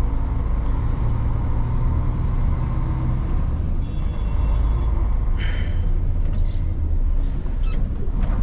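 Mercedes-Benz truck's diesel engine running under way, heard from inside the cab as a steady low rumble. A short hiss of air comes about five seconds in.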